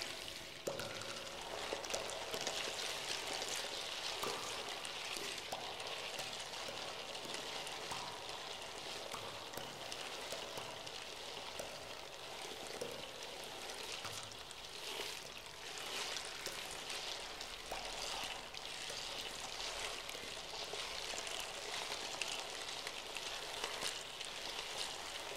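Steady running-water sound, like a stream or rain, full of small crackles, as part of a taonga pūoro music track.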